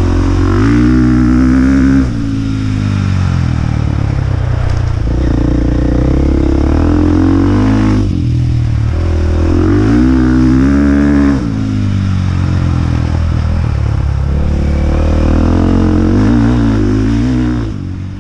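Dirt bike engine heard on board while riding a trail, its pitch repeatedly climbing under throttle and falling back, with sudden drops about two, eight and eleven seconds in.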